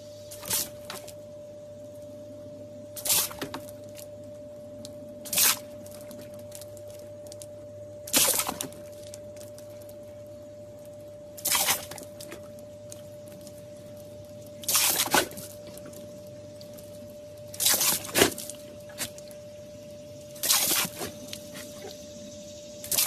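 Pit bull-type dog making wet, slobbery mouth and jowl noises, a short squelch about every two to three seconds, over a faint steady hum.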